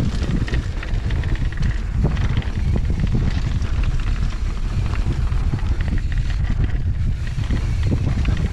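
Steady low wind rumble on the microphone of a mountain bike descending a dirt singletrack, with tyre noise and scattered clicks and rattles from the bike.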